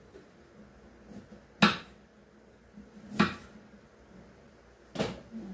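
Kitchen knife knocking down onto a wooden cutting board as food is cut, three sharp knocks roughly a second and a half apart.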